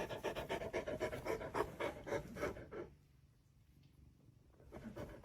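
Dog panting quickly, about six breaths a second, which stop for about two seconds midway and then start again.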